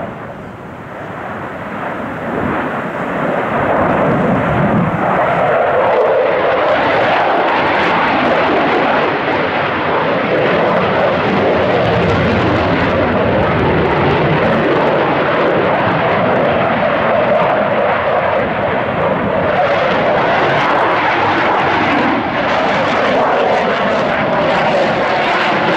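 Twin-engine delta-wing fighter jet manoeuvring in a flying display: loud, steady jet engine noise that swells over the first few seconds.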